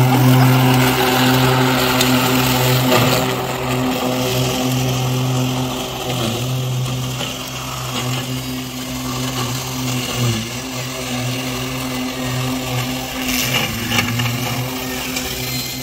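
Ryobi battery-powered electric riding mower running as it drives across the lawn: a steady electric hum with small dips along the way.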